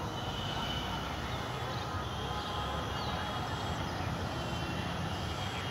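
Steady outdoor background noise: a low rumble of distant road traffic, with a few faint high thin tones over it.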